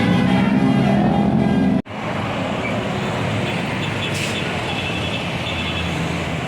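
Multi-tone bus telolet horn playing its stepping melody, which cuts off abruptly about two seconds in. After that comes steady road traffic noise.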